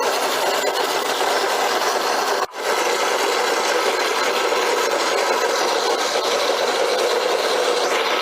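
Electric blender grinding fresh corn kernels with sugar, condensed milk and salt into a thick pamonha batter, running steadily with a brief stop about two and a half seconds in.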